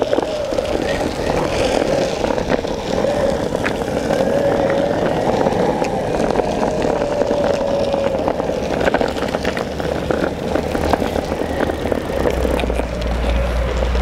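Longboard skateboard wheels rolling over a rough, gritty park path: a continuous gritty rumble with small scattered clicks. A deeper rumble joins near the end.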